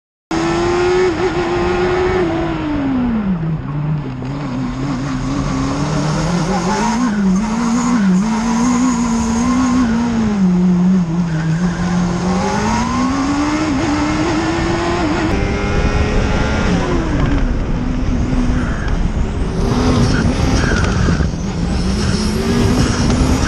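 Formula SAE race car's high-revving engine heard onboard, its note rising and falling in pitch as the throttle is opened and closed through the corners.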